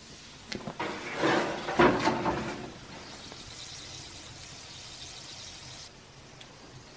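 Metal hooks and an iron rod clinking and clattering against each other at the mouth of a clay tandoor. Then a steady high hiss of the hanging turkey sizzling inside the oven for about three seconds, cutting off suddenly.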